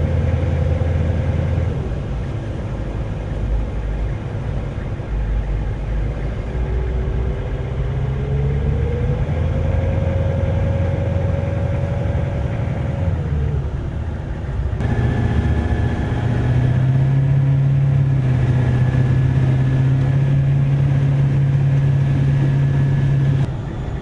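Large vehicle engines running steadily. The engine note shifts slowly through the middle, and the sound changes abruptly about 15 seconds in and again near the end.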